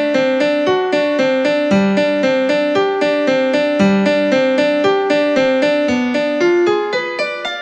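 Background piano music: a steady run of evenly paced single notes.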